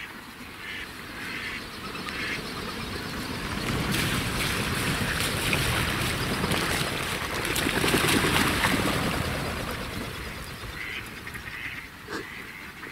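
A flock of about 30 mallards coming into the decoys: a rush of wings that swells over several seconds and then fades, with a few quacks before and after.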